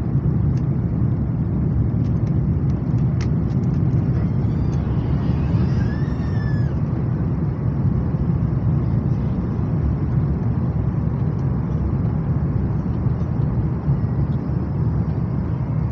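Steady low rumble of a vehicle heard from inside its cabin, even and unchanging throughout.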